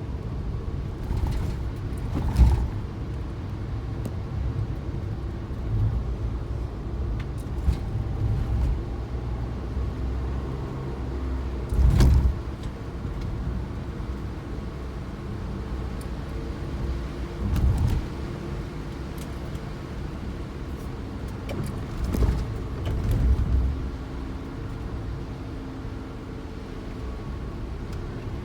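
Suzuki Jimny driving: steady engine and road rumble, with a few brief louder thumps about two, twelve, eighteen and twenty-two seconds in.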